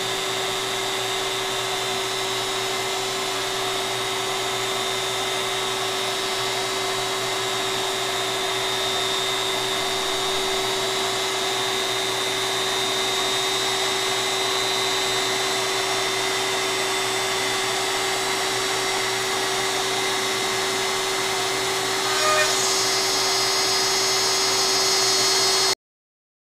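Compact router spindle on a DIY LowRider CNC running steadily with a high whine while it cuts a sheet. The sound cuts off abruptly near the end.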